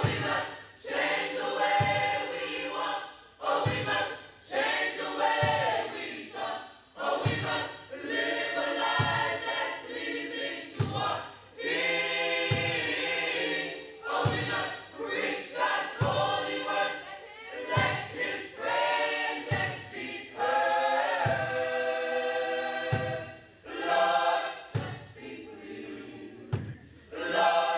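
Gospel choir singing, many voices together, with a low thud about every second and a half beneath the voices.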